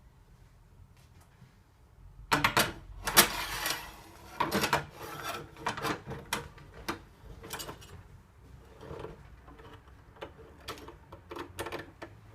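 A letterbox tool with a rubber gripper attachment clattering, clicking and scraping in a door's letterbox as it is worked onto a Yale latch lock from outside. It begins about two seconds in with a burst of loud rattles, then carries on in irregular clicks and scrapes.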